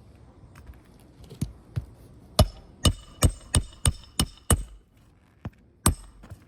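Hammer driving roofing nails into asphalt shingles: about ten sharp blows, most in a quick run of about three a second in the middle, one more near the end. The nails bounce off the surface instead of biting, which the roofer takes as a sign of rotted roof decking.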